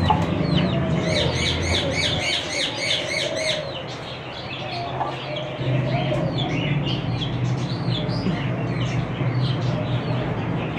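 Many caged birds in a bird shop chirping and tweeting, with a quick run of about five chirps a second in the first few seconds, over a low steady hum.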